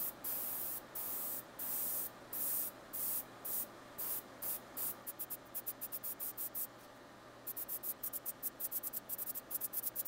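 Airbrush spraying paint in short hissing bursts, each about half a second for the first few seconds, then quick rapid taps of several a second from about five seconds in, with a short pause near the seventh second.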